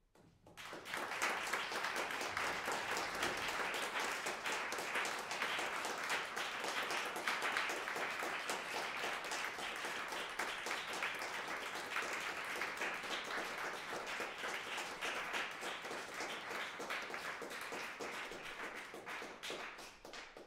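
Audience applauding: dense clapping that starts suddenly and holds steady, then fades near the end.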